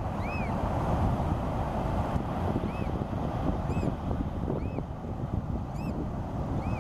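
American oystercatcher giving short, thin peeping calls, each rising and falling in pitch, about six at irregular intervals roughly a second apart. A heavy, steady wind rumble on the microphone lies under them and is the loudest sound.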